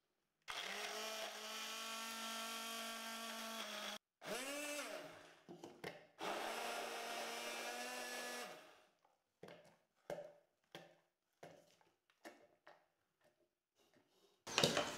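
Electric immersion blender blending oat pancake batter in a plastic beaker. It runs steadily for about three and a half seconds, stops, spins up again and runs about four seconds more, then gives a series of short pulses. Near the end comes a brief louder rattle as the beaker is handled.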